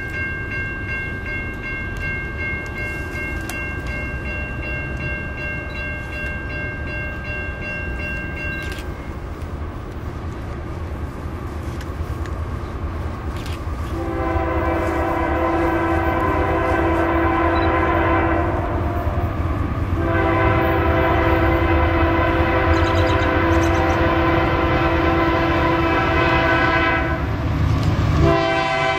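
A distant train horn chord is held for the first several seconds. From about halfway, the approaching diesel freight locomotive's air horn blows two long blasts, then a short one and another starting near the end, louder as it nears. A steady low rumble of the train runs underneath.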